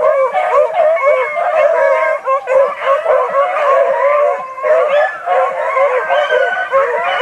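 A pack of beagles baying in full cry, many voices overlapping without a break, as the hounds run a swamp rabbit.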